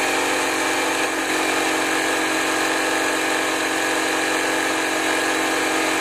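Small Campbell Hausfeld portable air compressor running steadily, its motor and pump filling a pressure pot with air. The pot is stuck at about 20 psi, which is put down to the pot's spring-loaded safety valve venting early.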